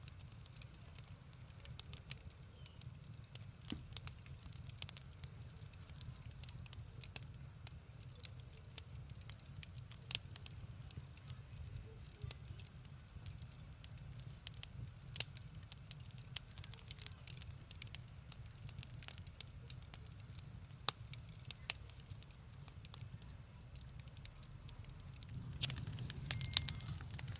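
Wood fire burning in a fireplace, crackling with scattered sharp pops over a low steady rumble; the pops come thicker and louder near the end.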